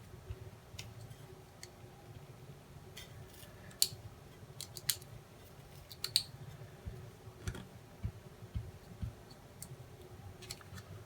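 Scissors cutting out a rocket sticker decal: a handful of quiet, irregular snips and small clicks.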